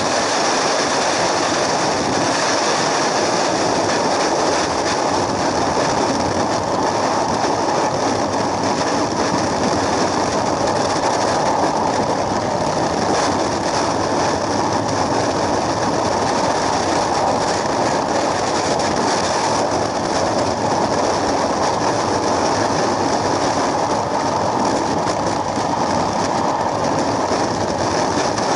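Freefall airstream rushing over a skydiver's helmet camera microphone: a loud, steady wind roar.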